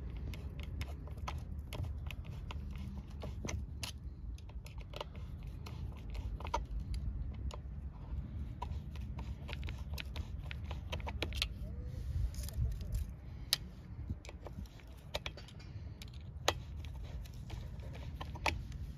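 Metal chainsaw chain links clicking and clinking at an irregular pace as the chain is worked onto the bar and sprocket with a screwdriver, with the screwdriver scraping and tapping against the metal. A steady low rumble runs underneath.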